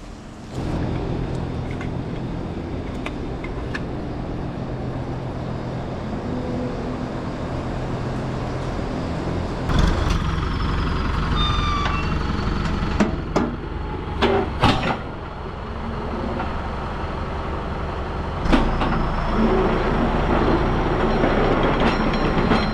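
A vehicle engine running steadily, with several clanks and knocks in the second half and a few faint squeaks.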